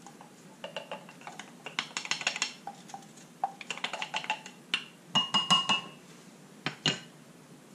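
A wooden spoon stirring and knocking against a glass measuring jug of lye water: a scattered run of light knocks and clinks, a few of them ringing briefly like glass.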